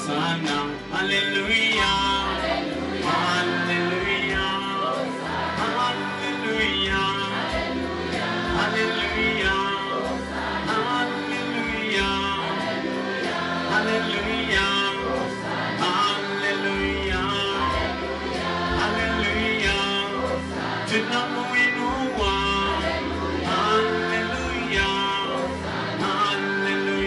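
Gospel worship music: several voices singing over instrumental backing with a steady bass line.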